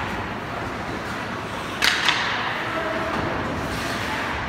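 Ice hockey game noise in a rink: a sharp crack of a puck impact just under two seconds in, with a second, smaller knock a quarter-second later, over steady arena noise.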